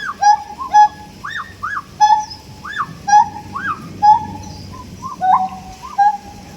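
Siamangs calling: a rapid, repeating series of loud whooping notes that rise and fall in pitch, alternating with shorter, lower barking notes.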